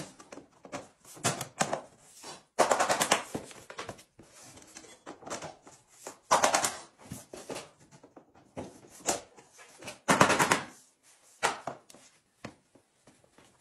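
Vinyl plank flooring being fitted over tile: planks tapped and clicked into place, heard as several bursts of quick taps and clicks a few seconds apart.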